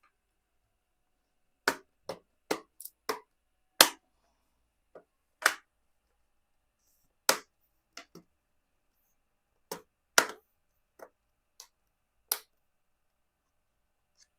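Bottom cover of a Dell Inspiron 5570 laptop being pressed back on, its plastic clips snapping into place in a string of sharp clicks at an uneven pace, about fifteen in ten seconds.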